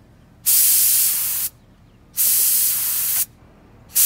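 Compressed-air paint spray gun hissing in three short bursts of about a second each, the last starting near the end, as the last of the paint in the gun is sprayed out.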